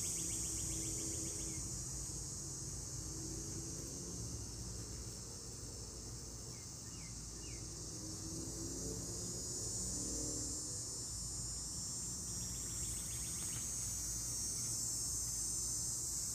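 Steady high-pitched insect chorus, with a short rapid chirping trill at the start and again about twelve seconds in.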